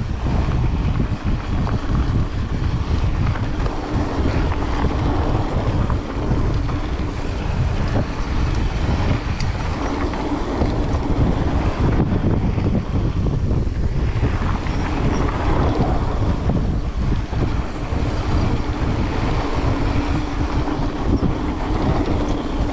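Continuous wind rush on the microphone mixed with tyre rumble and rattling from a mountain bike riding down a trail, with a faint steady hum that comes and goes.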